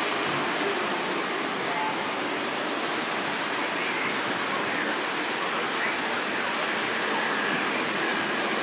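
Lionel model trains running around the layout's track: a steady rushing hiss and rumble of the locomotives and cars rolling on the rails.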